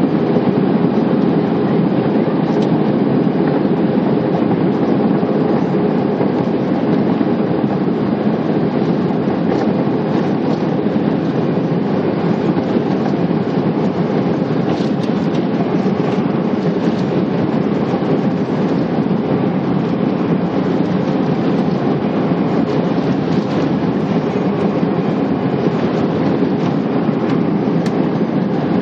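Airbus A319 during takeoff, a loud, steady rumbling noise of the jet engines at takeoff power, heard from inside the cabin.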